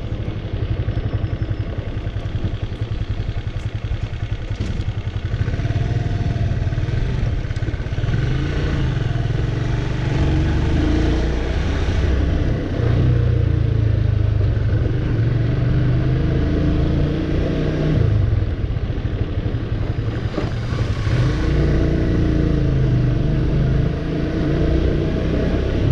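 Motorcycle engine running while riding, its pitch rising and falling several times as it speeds up and eases off.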